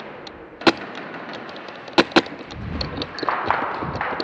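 Airsoft gun firing three single shots, sharp cracks about a second in and then two close together near the middle, followed by a stretch of rough noise with faint scattered ticks.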